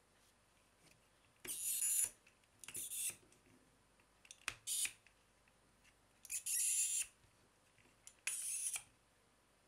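Plastic segments of a Rubik's Snake puzzle twisted by hand: five short bursts of plastic clicking and rasping, each under a second, spread across a few seconds, with one sharp click about halfway through.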